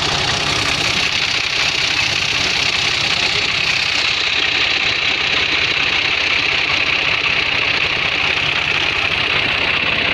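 Fiat 480 tractor's three-cylinder diesel engine running steadily.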